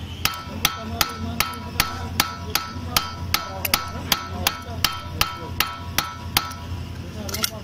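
Hammer tapping on a 10 mm Allen key seated in a TVS Scooty Pep's engine oil drain bolt: about seventeen ringing metal strikes at an even pace of roughly two and a half a second, then a quick rattle of light clicks near the end. The tapping is done to loosen the drain bolt so it can be opened.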